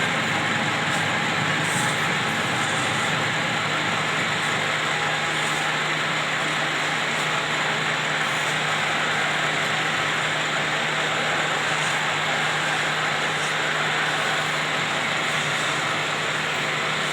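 Lathe running steadily: a constant low hum under an even whirring noise.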